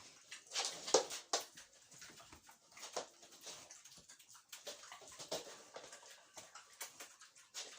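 Micro pigs making short grunts and squeals in irregular bursts.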